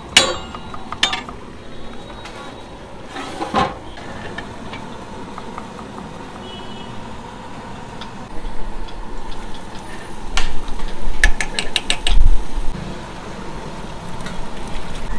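Metal utensils knocking and clinking against aluminium cooking pots, over a low traffic rumble. A quick run of sharp metallic clicks comes about two-thirds of the way through.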